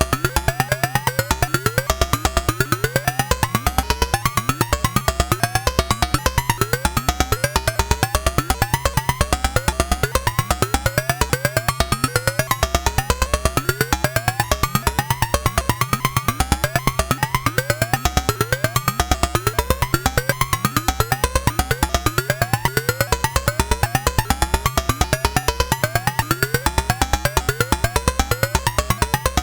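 Ad-vantage 03m monophonic analog synthesizer playing a fast, even sequence of short notes that glide in pitch, over a steady low bass tone that shifts every few seconds.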